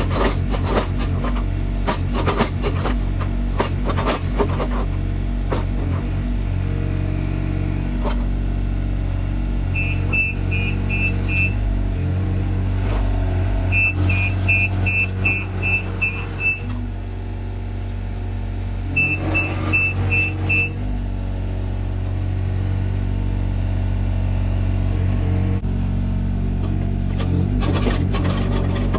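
Mini excavator's diesel engine running steadily under working load while its bucket digs and scrapes through soil and stones. In the middle, three quick runs of short high beeps.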